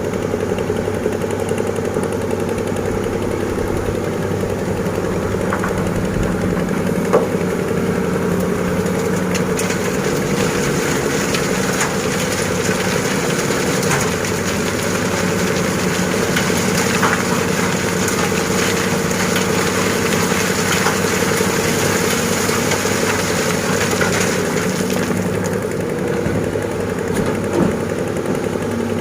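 Heavy diesel engines of an excavator and a dump truck running steadily while the excavator loads sand into the truck, with a few short knocks and scrapes. A higher hiss comes up for a long stretch in the middle.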